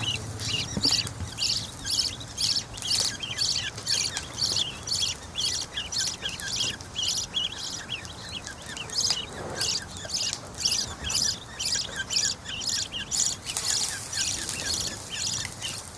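Parrot chicks giving high-pitched begging calls during hand feeding, repeated evenly at about two to three calls a second with small chirps between them.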